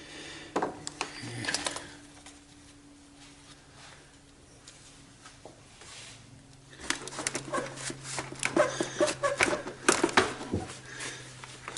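Fan assembly being wiggled and forced in the engine bay: a few sharp knocks and clicks at first, then a dense run of clicks, knocks and scrapes for about four seconds in the second half.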